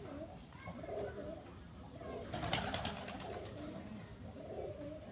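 Pigeons cooing in the background: repeated low, rounded calls, with a quick run of rattling clicks about halfway through.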